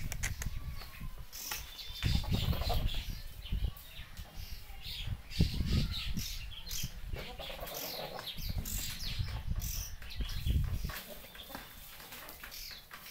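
Small birds chirping over and over with short, high tweets, mixed with bursts of low rumble that come and go and are loudest about five seconds in.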